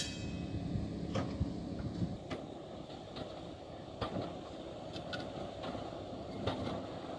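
The 1946 PCC streetcar W-30, a rail-grinding work car, rolling slowly along yard track with a low steady rumble and scattered light clicks and knocks from its wheels over the rail joints and switches.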